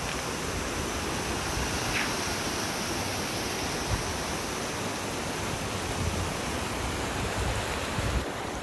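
A shallow, rocky mountain stream rushing over stones: a steady hiss of running water, with a few low thumps.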